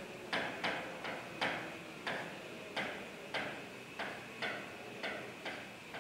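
Marker pen strokes on a writing board as words are written: faint, short, dry clicks and scratches at uneven intervals, about two a second.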